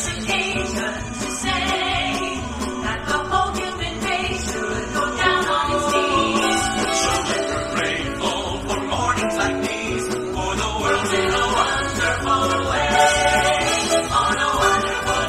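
Live band music with singing voices, played through a stage sound system.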